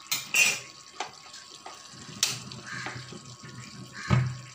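Cooking pan and utensils being handled on the stove: a few sharp clicks and knocks, the loudest a heavy knock with a low thud near the end. Under them is a steady faint hiss.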